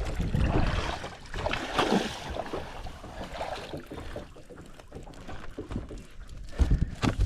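Water splashing and knocking at the side of a small boat as a hooked queenfish is brought in, with a few low thumps near the end.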